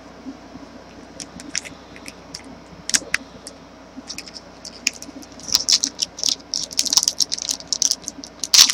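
Trading cards and a pack wrapper being handled: scattered light clicks and taps, becoming a busy crinkling and clicking from about halfway on.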